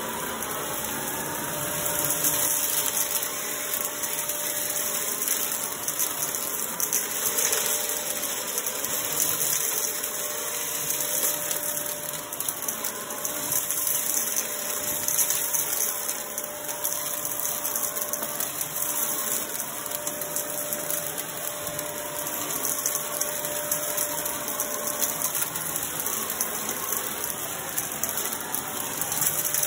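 Blue upright bagless vacuum cleaner running steadily on carpet, its motor note wavering up and down as it is pushed back and forth over small scattered debris.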